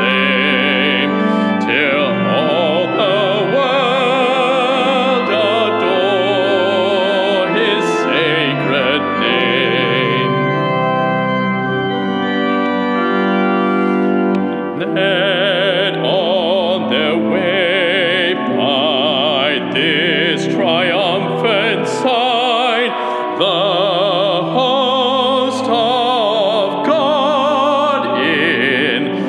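A man singing a solo in a trained voice with wide vibrato, accompanied on keyboard. Around the middle the voice rests for a few seconds while the accompaniment holds sustained chords, then the singing resumes.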